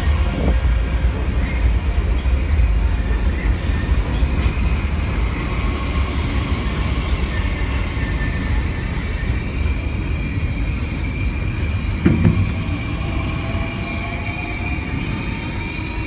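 Passenger train running across the steel railway bridge close by: a heavy low rumble with thin, steady whining tones above it, easing slowly toward the end. A short knock about twelve seconds in.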